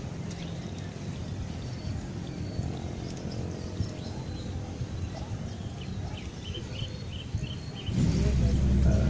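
Outdoor pond-side ambience: a steady low rumbling noise, with a short quick run of small bird chirps about six seconds in. Near the end the low rumble gets suddenly louder.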